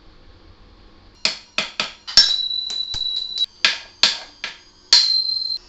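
Hammer blows on metal, knocking the stock headset parts out of an electric scooter's head tube: about nine sharp strikes over some four seconds. A few strikes leave a high metallic ring that cuts off abruptly.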